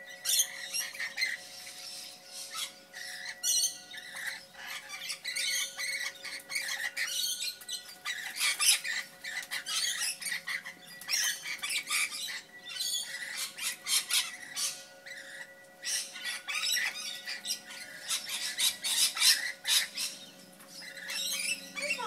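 Lorikeets squawking and screeching in rapid, shrill, repeated bursts, over a faint steady tone.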